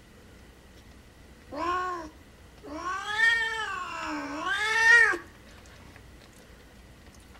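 A mother cat in labour calls out: one short meow, then a long, loud yowl of about two and a half seconds whose pitch rises, sags and rises again.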